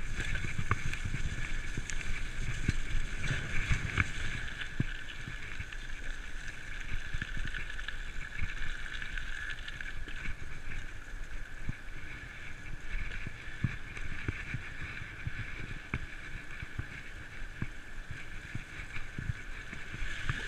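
Giant full-suspension 27.5-inch mountain bike being ridden over rough ground: a steady low rumble of tyres and wind on the microphone, with scattered clicks and rattles from the bike.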